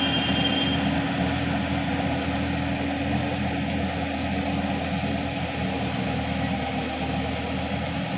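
Sonalika DI-50 RX Supreme tractor's diesel engine running steadily under load while its rotary tiller churns wet paddy mud. It grows a little fainter as the tractor moves away.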